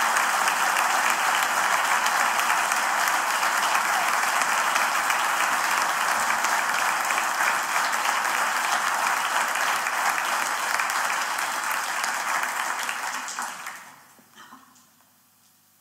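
A large theatre audience applauding steadily, the applause dying away near the end into near silence.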